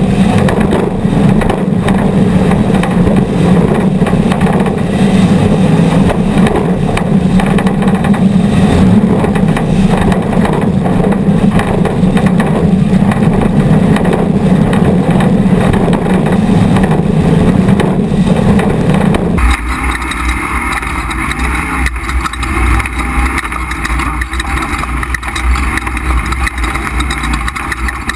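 Off-road race vehicle's engine running hard at speed, heard from an onboard GoPro. About 19 seconds in, the sound changes abruptly to a deeper rumble with a brighter hiss above it, as the footage cuts to another clip.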